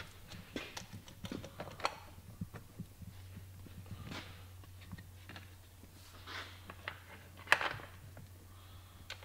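Scattered light clicks and knocks of a saw chain and guide bar being handled and fitted back onto a chainsaw, with one louder knock about seven and a half seconds in, over a steady low hum.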